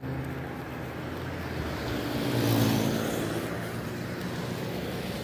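Road traffic on a wet road: engines running and tyres hissing, with one vehicle swelling loudest as it passes about two and a half seconds in, then fading.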